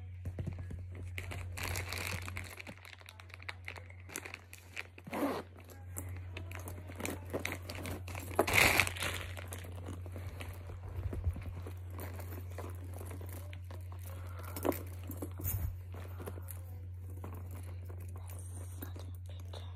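Rustling and crinkling of packaging and a fabric dust bag as a handbag is taken out and handled, with scattered light knocks; the loudest bursts come about five and nine seconds in. A steady low hum runs underneath.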